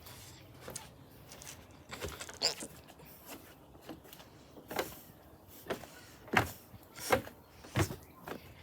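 Footsteps: a series of irregular knocks and scuffs, the last three evenly spaced about 0.7 s apart.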